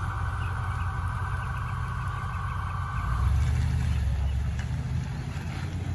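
Ford Super Duty pickup truck pulling away, its engine rumble growing louder about three seconds in. For the first three seconds a steady high-pitched buzzing tone sounds over it, then stops.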